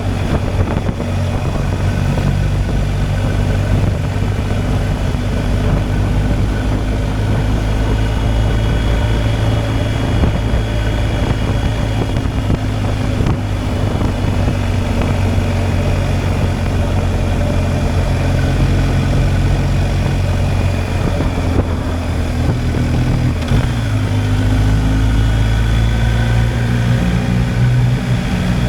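BMW R 1250 GS Adventure's boxer-twin engine running steadily under way, its note stepping up in pitch about 23 seconds in.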